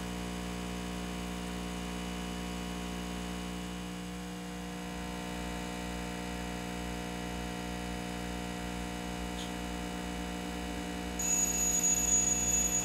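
Steady hum of a BlackJack BK4050 hot air rework station blowing low-pressure hot air onto a laptop GPU during reflow. About a second before the end, a high-pitched timer alarm starts sounding.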